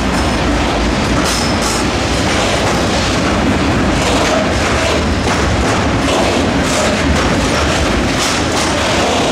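Covered hopper wagons of a freight train rolling past close by: a steady rumble of steel wheels on the rails, with clicks and knocks at uneven intervals as the wheels cross rail joints.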